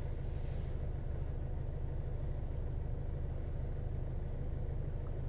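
Steady low background hum with no distinct handling sounds.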